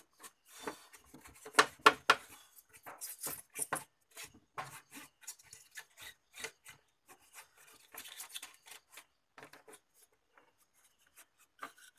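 Irregular rubbing and scraping strokes from the inside of an opened LED TV being cleaned, short scrapes in quick succession, loudest about two seconds in and thinning out toward the end.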